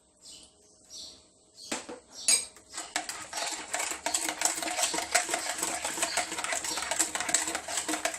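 Madeleine batter being mixed by hand in a bowl: a utensil clicks and scrapes rapidly and steadily against the bowl. It starts after a few separate knocks about three seconds in.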